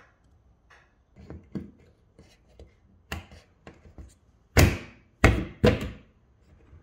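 Knocks and taps of a plastic recessed ceiling spotlight fitting being handled and pushed up into its hole in the ceiling, where its spring clips hold it. Light scattered taps, then three loud knocks in quick succession about two-thirds of the way in.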